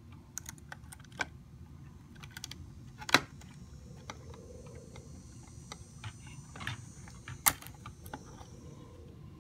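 Irregular small plastic clicks and ticks as wire-harness connectors are worked loose and unplugged from a hoverboard's logic board, with two louder clicks about three seconds in and about seven and a half seconds in.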